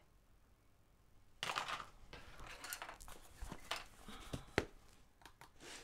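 Handling sounds at a table after a quiet first second and a half: plastic tubing and a cardboard box moved about, with a rustle, scattered light clicks and one sharper knock about four and a half seconds in.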